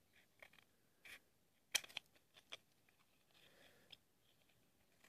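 Scissors snipping through a cardboard matchbox: a few faint, sharp snips and clicks, the loudest a little under two seconds in.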